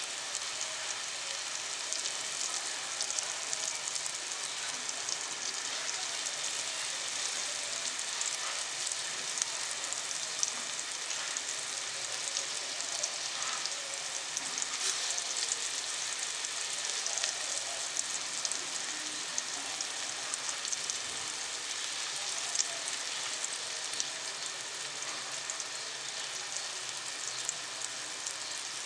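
Hot oil sizzling in a shallow pan, a steady hiss with scattered small crackles, as rice-flour-coated silver bar fish (karli) pieces shallow-fry with garlic cloves.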